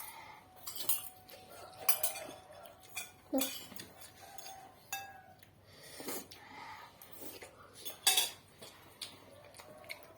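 Cutlery clinking and scraping against dishes during eating, with sharp, irregular clinks every second or so; the loudest come about two, three and eight seconds in.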